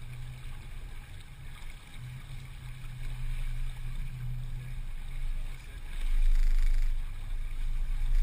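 Sailboat under way: a steady low hum with wind rumbling on the microphone, gusting louder about six seconds in.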